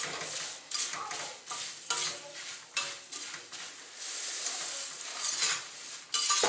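Slotted metal spatula scraping around a kadai as it stirs puffed rice into fried peanuts and spices, in short irregular strokes. About four seconds in comes a steady dry rustling hiss as more puffed rice is poured into the pan.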